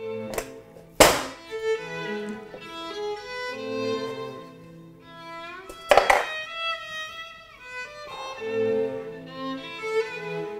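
Background music of bowed violin and strings, with two sharp knocks, about a second in and about six seconds in, of the metal cake pan striking the wooden board.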